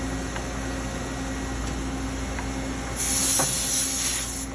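Steady lathe-shop machine hum with a few faint clicks, then a sharp hiss of air that starts suddenly about three seconds in and cuts off about a second and a half later.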